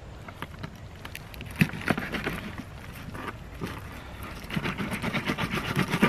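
Knife cutting into a kahawai's belly on a polystyrene chilly-bin lid: rapid crunching, scraping strokes in two spells, one about one and a half seconds in and a longer one from about four and a half seconds.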